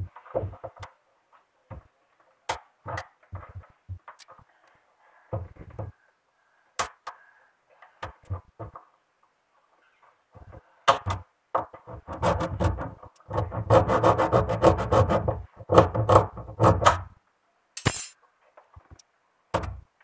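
Scattered knocks, taps and clicks, with a longer stretch of rubbing and knocking in the middle, as a washing machine's drain hose is pressed and worked into place by hand and with pliers.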